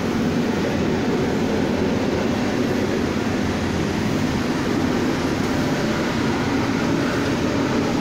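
Lead-recycling rotary furnace running: a loud, steady, deep noise with no breaks.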